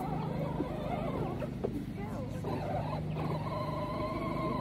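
Young chickens making short, soft calls as they peck at tomato scraps, with a steady low hum underneath.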